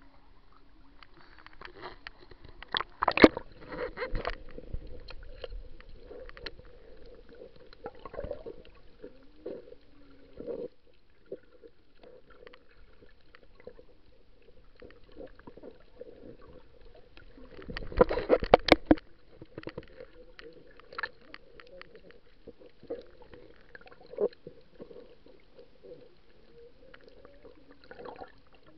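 Muffled water sound picked up by a camera held underwater in shallow sea: water moving and gurgling under a faint steady hum. There are scattered clicks and knocks, with loud clusters of clattering about three seconds in and again around eighteen seconds.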